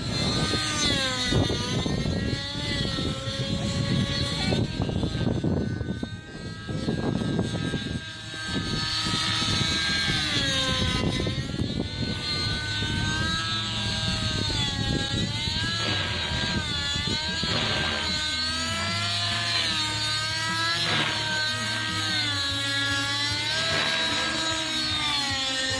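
TSA Infusion 600N Pro nitro model helicopter's engine and rotors running hard in flight, the pitch rising and falling over and over as it manoeuvres.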